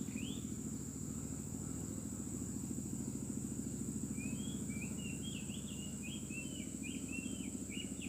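Oriental magpie-robin (kacer) song: a few whistled notes right at the start, then from about halfway a quick run of short rising whistles. Under it are a steady high-pitched insect buzz and a steady low throbbing drone.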